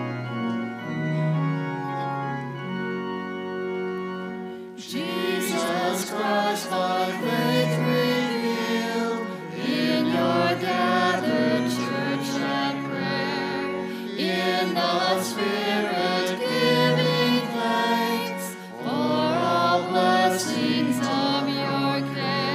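Church organ playing the introduction to the opening hymn, then about five seconds in voices join and the hymn is sung with organ accompaniment.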